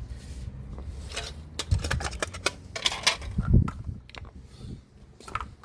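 Sharp metal clicks and knocks of a screwdriver loosening a screw in a washing machine's bottom front panel, with a couple of heavier thumps.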